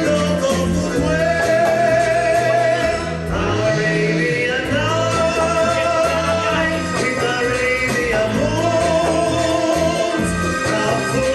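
Live Cuban music: a singer holding long melodic lines over a band with bass and percussion, playing steadily.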